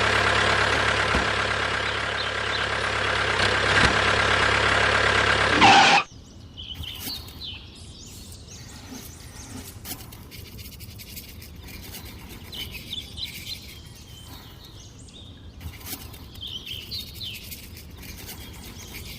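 A loud, steady vehicle engine runs and cuts off suddenly about six seconds in. Quieter outdoor ambience follows, with birds chirping now and then.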